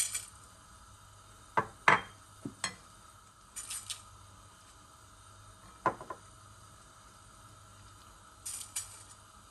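Kitchen dishes and utensils knocking and clinking against each other several times, with two brief high rustling sounds in between.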